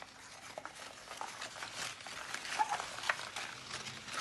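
Pleated paper crinkling and rustling under the hands as a folded paper ring is pressed flat on a table: a run of small crackles and rustles, with one short squeak a little past halfway.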